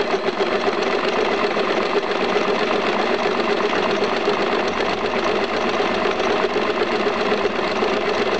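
Usha domestic sewing machine running at a steady speed, its needle rapidly chattering up and down as it sews a zigzag test seam through cloth.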